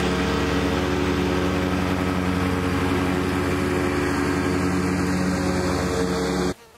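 Kubota B2601 compact tractor's three-cylinder diesel running steadily while mowing with its mid-mount rotary deck engaged. The sound cuts off abruptly near the end.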